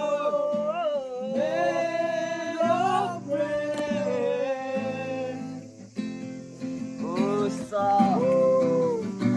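Acoustic guitar strummed under a man singing a melody with long, bending held notes.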